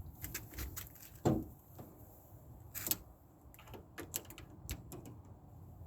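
Scattered small metallic clicks and taps of a screwdriver working a Torx screw loose in a car door handle, with one louder knock about a second in.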